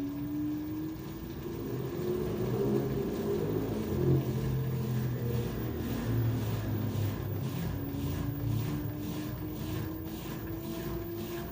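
LG 13 kg washer-dryer drum spinning up, its motor whine rising in pitch, dropping back about halfway through and rising again, with a swish from the turning drum repeating about twice a second.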